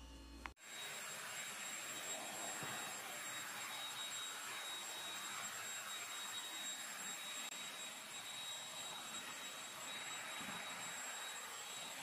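Cordless stick vacuum cleaner running steadily on a tiled floor: an even rush of air with a thin high whine. It comes in suddenly about half a second in.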